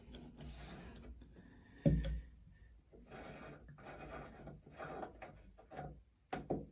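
Old tap cartridge being unscrewed by hand from the basin tap body: irregular scraping and rubbing of metal parts, with a sharp knock about two seconds in and two short clicks near the end.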